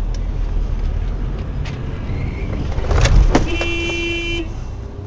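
Car running with low road rumble in the cabin. About three seconds in come a couple of heavy thumps, then a car horn sounds steadily for about a second.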